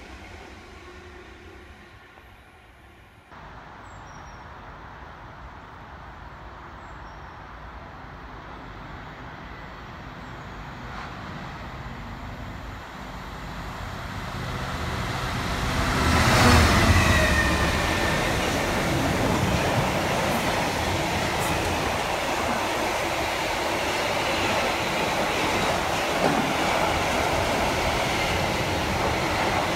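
A Class 66 diesel locomotive hauling a freight train approaches and runs through a station. It is loudest as the locomotive passes about halfway through, with a falling whine, and is followed by the steady rumble of the covered wagons rolling by. Before a cut about 3 s in, a more distant container freight train is faintly heard passing.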